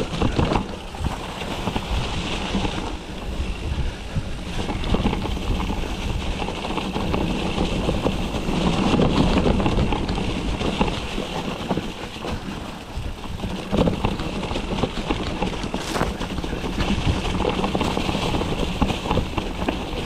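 Wind buffeting the camera microphone on a fast mountain bike descent, over the rumble of tyres on a rough dirt trail, with the bike knocking and rattling over bumps.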